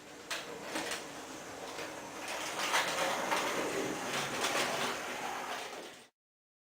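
Märklin H0 model train running along the track: a rolling rattle with frequent clicks from the wheels and rails. It grows louder in the middle and stops abruptly about six seconds in.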